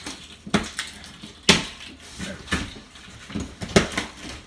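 Cardboard shipping box being pulled open by hand, its heavy packing tape coming away: a string of irregular knocks, scrapes and rustles, roughly one sharp one each second.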